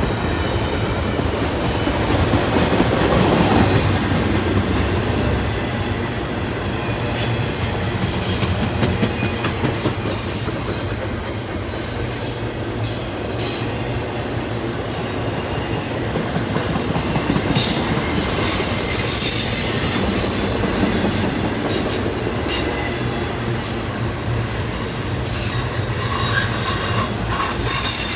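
Double-stack intermodal freight train's container well cars rolling past: a steady rumble of wheels on rail, with high-pitched wheel squeal that comes and goes and occasional short knocks.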